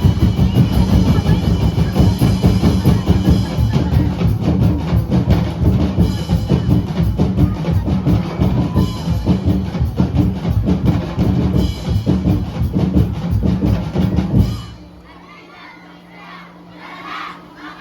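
Festival street-dance drumming: a fast, dense beat on bass and snare drums that stops suddenly near the end, leaving crowd voices and shouts.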